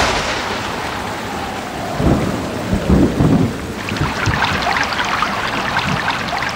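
Thunderstorm: a sharp crack of thunder at the start, deep rolls of thunder about two to three and a half seconds in, and steady heavy rain throughout.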